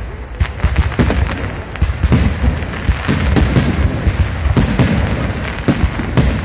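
Fireworks display: a rapid, irregular run of loud bangs and booms, several a second, over a continuous low rumble.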